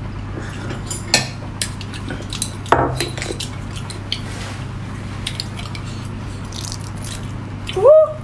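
Handling a large sea snail in its shell: scattered small clicks and knocks of shell and fingers, with wet squishy sounds from the soft body, over a steady low hum. Near the end a brief pitched sound rises then falls, the loudest thing heard.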